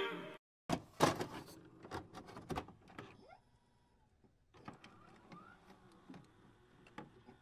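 Background music fading out, then a scattering of faint sharp clicks and short knocks, most of them in the first couple of seconds, with a few fainter ticks later over near silence.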